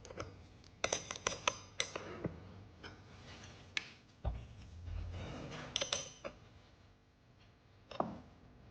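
Irregular sharp metallic clicks and light taps of a wrench working the bicycle saddle's clamp nut: a quick run of them about a second in, a few more scattered later, and one low thump near the middle.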